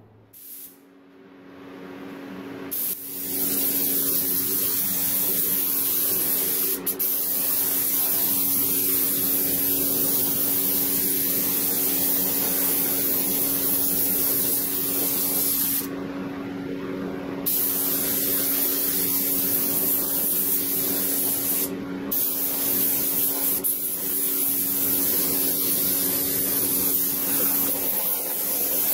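Paint being sprayed onto a restored steel wheel: a steady hiss that builds up over the first few seconds and breaks off briefly twice, about halfway and two-thirds of the way in, as the spray is stopped and restarted. A faint steady hum runs underneath.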